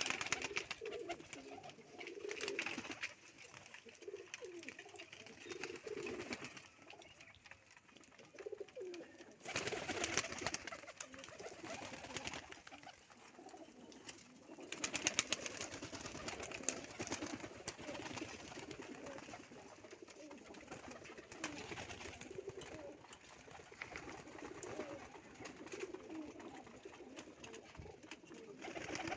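Domestic pigeons cooing over and over in a loft, with a couple of louder bursts of noise about ten and fifteen seconds in.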